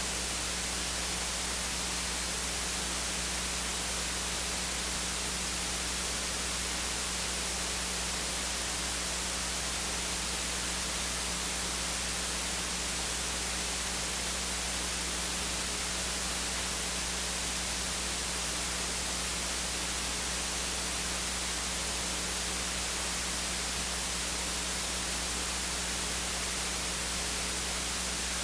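Steady, even static hiss with a constant low electrical hum underneath.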